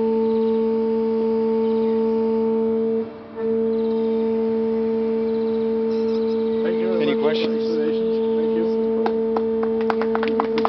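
Steady hum of a hydraulic system driving an adaptive structure's support actuators: one low tone with a higher tone above it, cutting out briefly about three seconds in. Near the end a quick run of sharp clicks sounds over it.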